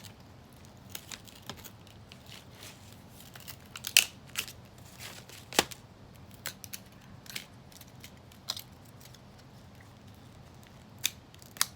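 Scissors snipping and prying at the inside of an iPhone 7, trying to work loose a metal part. Scattered sharp clicks and snips, the loudest about four seconds in and again a moment later, with two more near the end.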